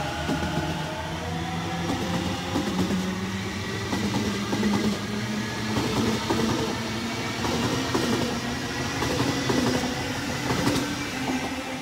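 Double-deck electric suburban train moving past along the platform, its traction motors giving a whine that climbs in pitch as it gathers speed. The wheels click over rail joints throughout, most densely near the end as the last carriage passes.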